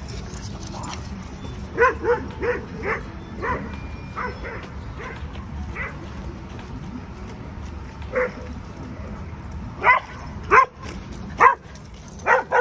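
Dogs barking in play: a quick run of short barks about two seconds in, a few scattered barks after, and four louder barks near the end.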